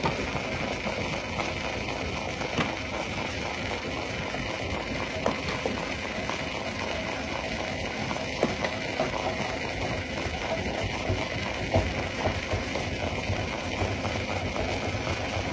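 Stone crusher running steadily with a low rumble and clatter, with occasional sharp knocks of rock being broken in it.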